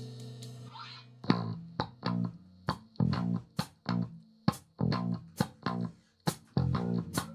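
Band music: a held chord dies away over the first second, then a guitar plays a riff of short, separated low plucked notes, about two to three a second.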